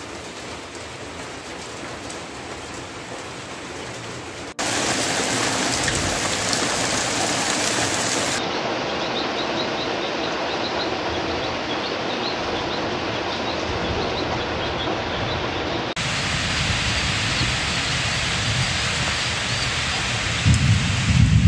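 Heavy rain falling steadily as a dense hiss, which jumps louder about four and a half seconds in and shifts again at later cuts. A low rumble swells near the end.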